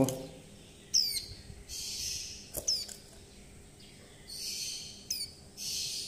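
Fledgling white-eye giving short, high chirps, each a quick falling note, about four in a few seconds, with soft hissing between them: begging calls from a hand-fed chick that still wants food.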